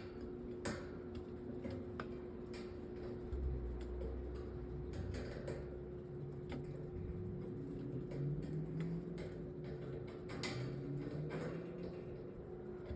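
Flathead screwdriver turning the screw that holds a metal table fan's grille ring: scattered light metal clicks and scrapes at irregular intervals. A faint steady hum runs underneath.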